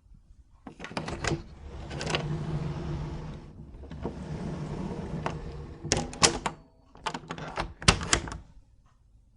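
A door being opened and shut: clicks of the handle and latch about a second in, two stretches of scraping noise as the door moves, then several groups of sharp latch clicks and knocks as it closes.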